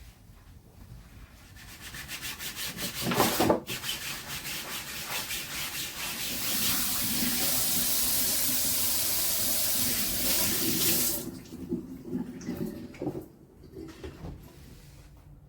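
Quick repeated rubbing strokes with one louder scrape about three seconds in, then water running steadily from a tap for about four seconds before it is shut off.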